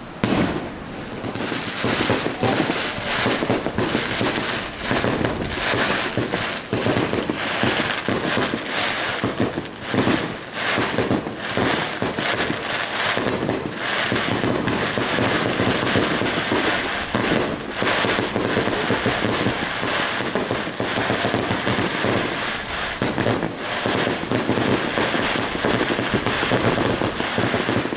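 Fireworks going off in a dense, unbroken barrage of crackles and bangs. It starts suddenly and eases off just at the end.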